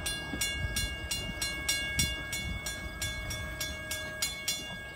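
Railroad grade-crossing bell ringing, about three strikes a second, as the crossing gate lifts after the train has passed; it stops near the end. The departing train's low rumble runs underneath.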